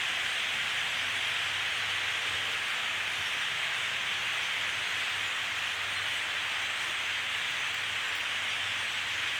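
A huge flock of grackles calling all at once, tens of thousands of birds blending into a steady, dense, hissing chatter.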